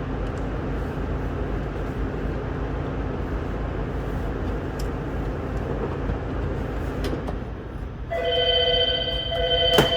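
A steady low background rumble, then about eight seconds in a phone starts ringing with a ringtone of several held tones. A sharp click comes just before the end.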